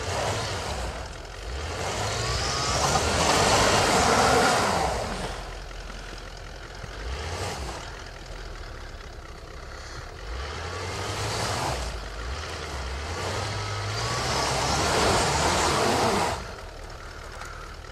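Toyota Land Cruiser 200 stuck in snow and mud, its engine revving hard in two long surges, with shorter revs between, as the wheels spin and churn the snow. The wheelspin digs it in deeper instead of freeing it.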